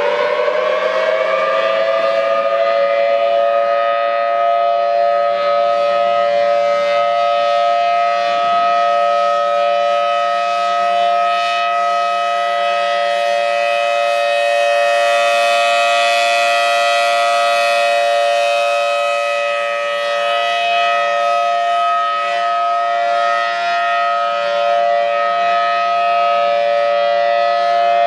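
Greek emergency alert alarm: a siren whose rising wail levels off in the first couple of seconds into a steady chord of several notes, then holds it loud and unbroken.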